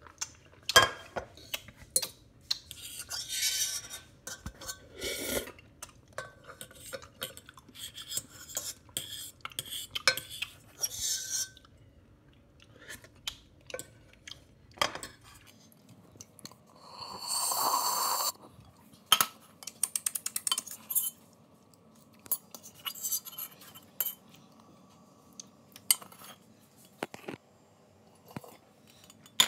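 Metal pot and utensils clinking and clattering in irregular knocks and scrapes, with a rushing sound lasting about two seconds a little past halfway.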